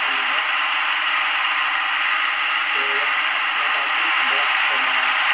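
Loud steady hiss with a faint man's voice speaking beneath it.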